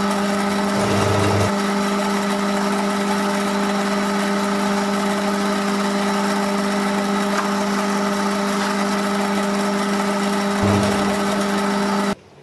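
Machine tool motor running steadily with a strong even hum during a light boring pass to final size, cutting off suddenly near the end.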